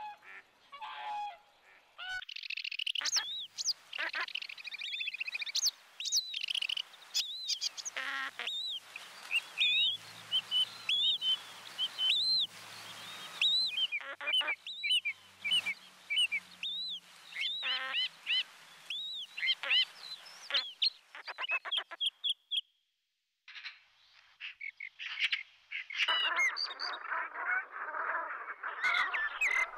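Many short, high whistled bird calls, arching up and down in pitch, follow one another quickly, then stop briefly. After that a flock of brent geese breaks into many overlapping calls.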